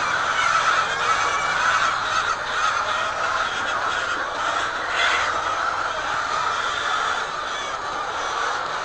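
A large flock of laying hens calling together in a steady, dense din.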